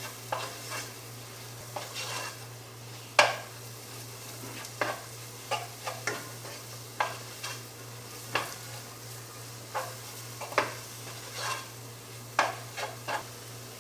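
Spice masala of onion, tomato and ground chilli and coriander being stirred as it fries in oil in a pan: irregular knocks and scrapes of the stirring utensil against the pan over a faint sizzle, cooking off the raw smell of the spice powders.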